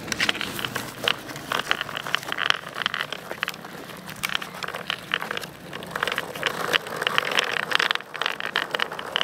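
Skateboard wheels rolling over asphalt in a steady low rumble, with many small clicks and scrapes from puppies' claws on the pavement and the board.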